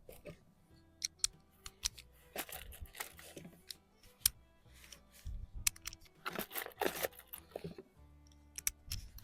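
Small clicks and rustles of .22 LR cartridges being pressed one by one into the rifle's 10-round magazine, over quiet background music.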